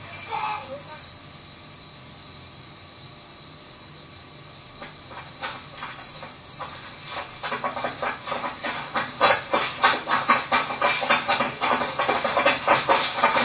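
Crickets chirping in a steady, pulsing high trill. Rapid crackling clicks join about a third of the way in and grow denser toward the end.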